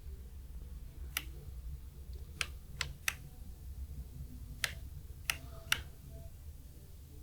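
Seven sharp clicks at uneven intervals over a low steady hum.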